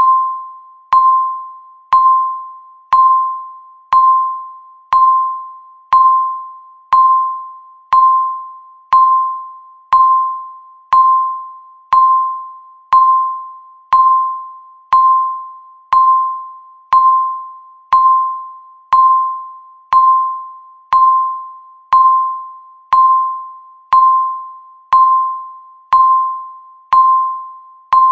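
Countdown timer beeping once a second: a single electronic tone, each one struck sharply and fading away like a ding before the next.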